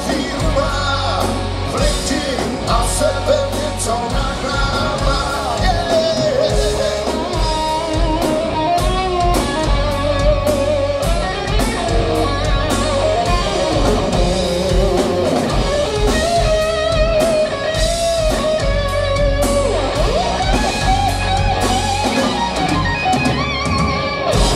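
Heavy metal band playing live: distorted electric guitars over bass and drums, with a melodic lead line.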